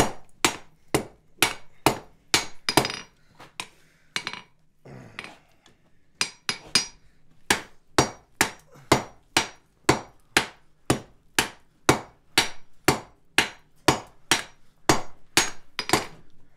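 Hammer blows on a red-hot steel holdfast bar on an anvil, about two strikes a second. There is a short lull of lighter knocks a few seconds in, then steady blows again to the end, while the bar is being forged out.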